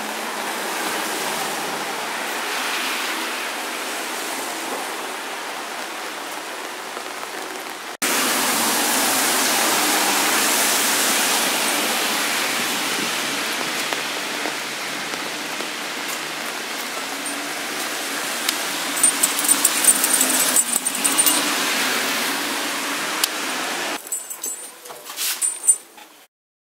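Steady rain falling, an even hiss that jumps louder about eight seconds in. Light metallic jingling comes in briefly around twenty seconds in.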